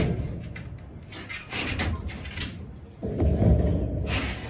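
A short-bristle livestock brush swishing in strokes over a dog's olive-oiled coat, mixed with low bumps and thumps of handling, loudest about three seconds in.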